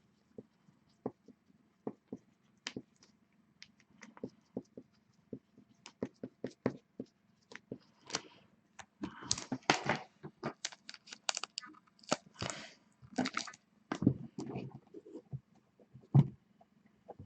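Trading cards and their plastic packaging being handled: a string of sharp clicks and taps, with bursts of rustling and crinkling a little past the middle.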